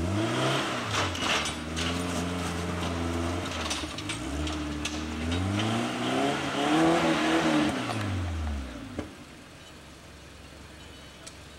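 Suzuki Samurai engine revving hard twice while crawling over boulders. Its pitch climbs and holds, dips about four seconds in, climbs again to its loudest, then falls away about nine seconds in, with scattered sharp knocks.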